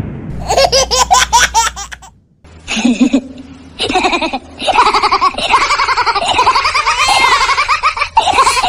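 High-pitched cartoon laughter sound effect: a quick run of giggles, a short break about two seconds in, then longer continuous laughing.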